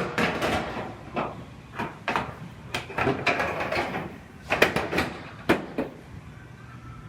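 Irregular knocking and clattering: about a dozen sharp knocks with scraping and rattling between them, dying down near the end.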